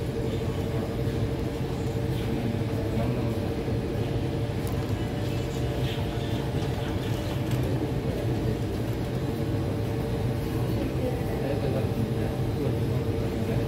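Steady low drone with a constant mid-pitched hum from a Kawasaki C151 metro train standing at a platform with its doors open, its onboard equipment running. Faint, brief tones come in near the end.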